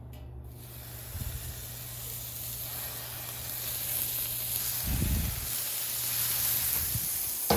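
Ground beef sizzling on a hot Blackstone flat-top griddle. The hiss starts suddenly about half a second in and then holds steady, with a dull low thud near 5 seconds.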